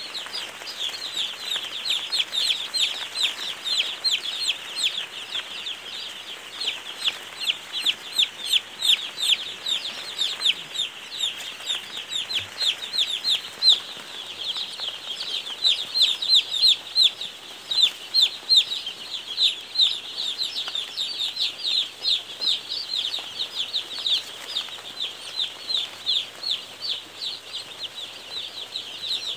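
A brooder full of young chicks peeping without pause: a dense chorus of short, high cheeps, each sliding downward in pitch.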